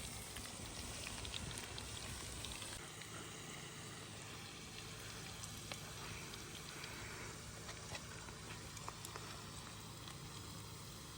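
Food sizzling in a frying pan over a wood fire, a steady hiss with scattered small crackles and pops.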